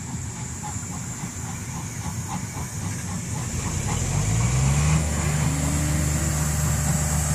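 Steam locomotive 03 1010 pulling out with its passenger train: a rumble with light regular beats at about four to five a second. About four seconds in, a low engine-like drone rises in pitch, then holds steady and becomes the loudest sound.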